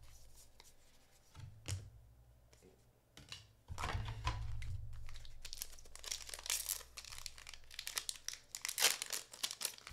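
Foil booster-pack wrapper of a One Piece Card Game pack being torn open and crinkled by hand. It is mostly quiet for the first few seconds with a couple of light clicks, then crinkling and tearing runs from about four seconds in, with sharp crackles near the end.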